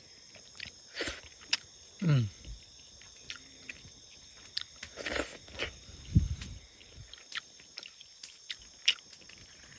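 Steady high-pitched chorus of night insects, with scattered close-up clicks and lip smacks of someone eating, and a brief falling "mm" about two seconds in.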